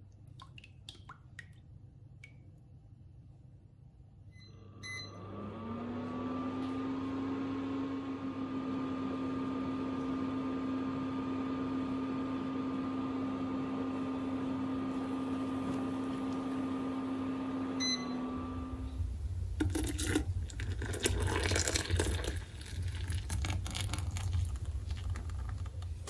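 A small electric kitchen appliance motor starts with a click, spins up briefly in pitch, then hums steadily for about thirteen seconds before stopping. Busy clattering and handling noises follow near the end.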